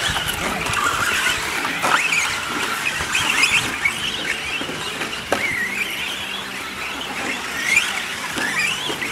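Several 1/10-scale radio-controlled 4x4 short-course trucks racing on dirt, their electric motors whining high and rising and falling in pitch as they accelerate and slow for corners. Two sharp clacks stand out, about two seconds and about five seconds in.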